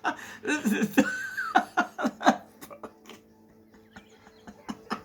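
A person laughing in quick rhythmic bursts, dying away about halfway through, followed by a faint steady hum and a few light clicks.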